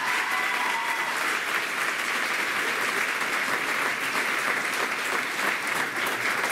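Audience applauding, a dense, steady clapping from a full hall.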